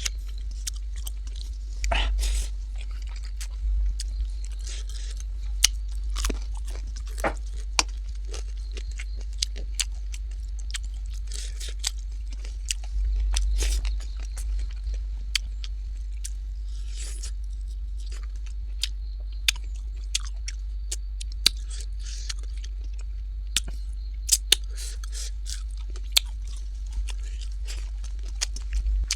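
A person chewing a meal of duck curry and rice, with many short, sharp clicks and crunches scattered throughout and a few longer bursts about two seconds in and in the middle, over a steady low hum.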